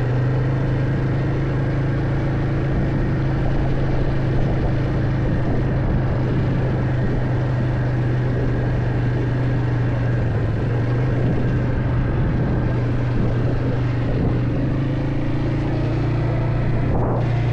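A motor vehicle's engine running steadily at an even pitch, with a short knock near the end.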